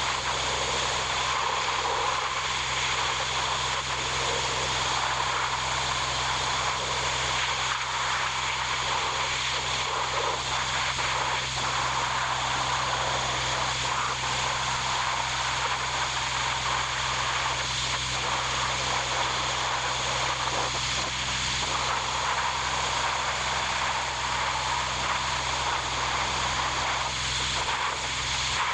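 Ford 4000 tractor engine running steadily at a constant speed.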